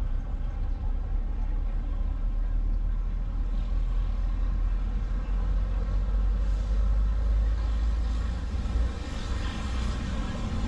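A moving road vehicle: a steady, heavy low rumble of engine and road noise with a fainter hiss above it.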